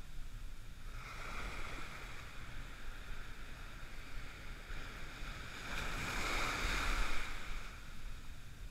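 Ocean surf washing around a wader, with wind rumbling on the microphone. A wave rushes through about a second in, and a louder one swells and fades between about five and a half and seven and a half seconds.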